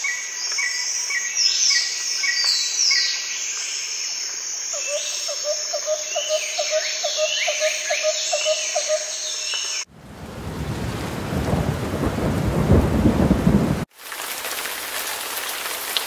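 Birds singing in high falling whistles for about ten seconds. Then a sudden switch to a loud low rumble of thunder over rain for about four seconds, followed by a steady hiss of rain.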